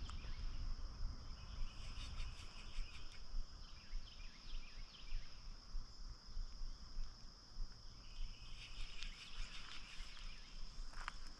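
Outdoor creekside ambience: a steady high-pitched insect drone, with stretches of short chirps twice, over a low rumble.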